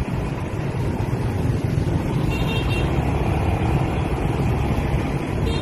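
Steady low rumble of riding a motorbike through dense scooter traffic: engines and wind on the microphone. A short horn beep sounds about two seconds in.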